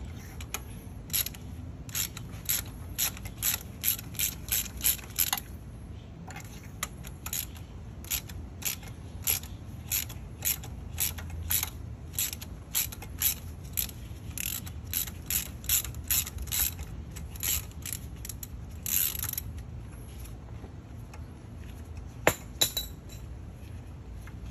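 Hand ratchet with an extension and spark plug socket clicking in quick runs as it is swung back and forth, loosening the spark plugs. There are short pauses between runs.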